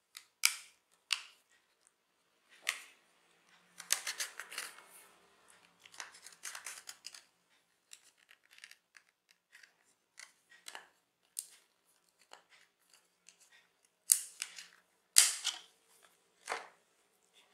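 Snap-on back cover of a Lava Spark i7 keypad phone being pried off with a fingernail along the seam: a string of sharp clicks and short scraping bursts. The loudest snaps come near the end as the cover comes free.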